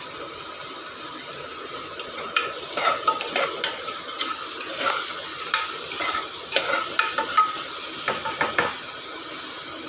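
Sliced onions and green chillies sizzling in ghee in a pressure cooker, being fried towards golden brown. A spoon stirs them, scraping and knocking irregularly against the metal from about two seconds in.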